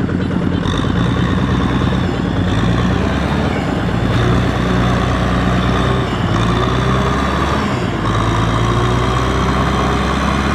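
Kubota M6040SU tractor's diesel engine working under load as it hauls a loaded trailer through deep mud, with a steady note that rises a little in pitch partway through.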